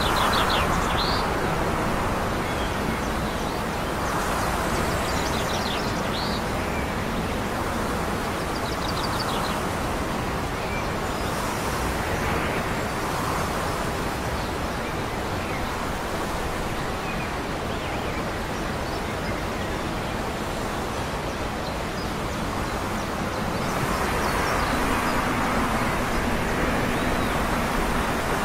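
Steady wind and distant traffic noise, with a small bird giving short high chirps several times in the first ten seconds. About 24 seconds in, a low hum swells up as a distant vehicle passes.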